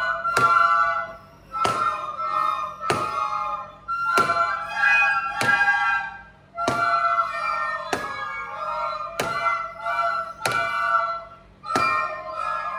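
A class of children playing plastic soprano recorders in unison, a simple melody in short phrases. A sharp knock keeps a steady beat about every second and a quarter.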